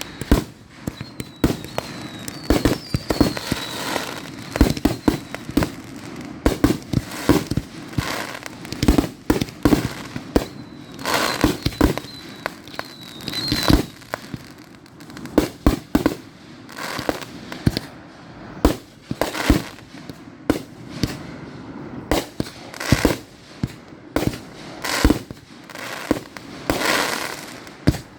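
Fireworks display: a rapid, irregular series of loud bangs and pops, several a second at times, with a thin high whistle heard twice among them.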